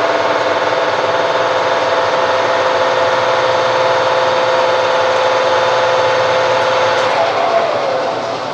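Old metal lathe running with a steady whine from its motor and gearing. About seven seconds in, the whine falls in pitch and fades as the spindle slows down.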